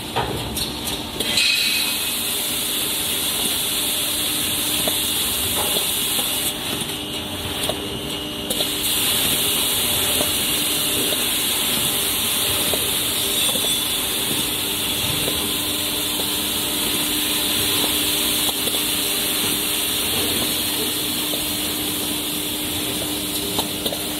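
Maxi roll paper making line running: a steady machine hiss with a constant hum beneath it and scattered light clicks.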